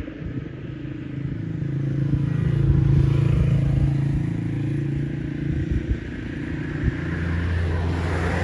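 Motor vehicles passing on a road bridge. An engine's drone grows louder, peaks about three seconds in and fades, and another, deeper engine drone comes up near the end.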